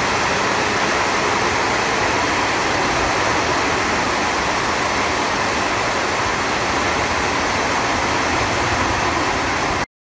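Heavy rain pouring down, a steady dense hiss with no let-up, which cuts off suddenly near the end.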